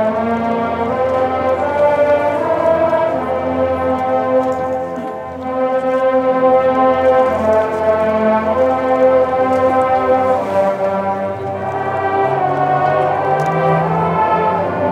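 Several marching bands playing together: a large brass-heavy ensemble sounding long held chords that change every second or so, with the low brass stepping upward near the end.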